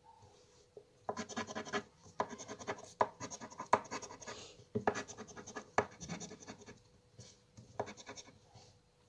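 Crossword scratch-off lottery card being scratched with a green scraper: a run of short rasping strokes starting about a second in, easing off with a few last strokes near the end.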